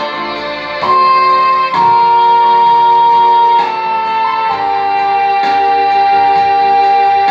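Mini Native American flute playing a slow melody of long held notes, stepping up once and then down over the first few seconds, then settling on a lower note held for the last few seconds, over a recorded accompaniment.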